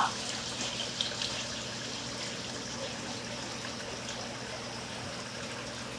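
Water running and trickling steadily, with a few faint clicks.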